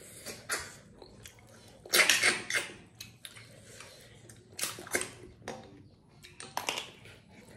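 Snails in curry being sucked out of their shells by mouth: a string of short, sharp slurps with chewing between. The loudest slurp comes about two seconds in, with others near five and seven seconds.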